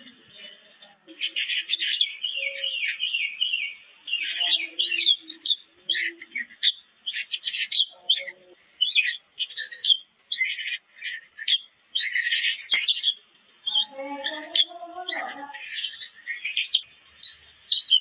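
Eagle chicks in the nest peeping rapidly, runs of short high-pitched chirps that keep on almost without a break while the larger chick pecks at its smaller sibling. A lower, rougher sound joins briefly near the end.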